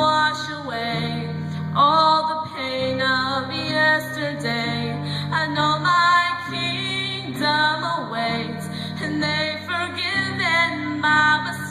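A female singer singing a melody with instrumental accompaniment, low sustained notes changing about once a second beneath the voice.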